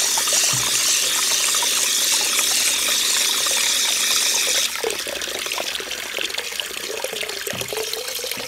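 Tap water running from a faucet into a plastic chick-waterer base, splashing steadily as it fills. About halfway through the stream turns softer and less hissy.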